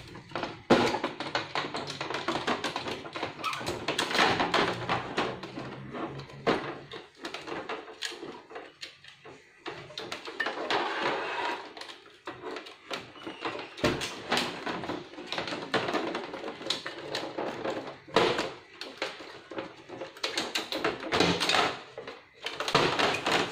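Plastic clicking, tapping and rattling from the scanner unit and housing of an HP Deskjet 2515 printer being handled and fitted back on, with many irregular knocks.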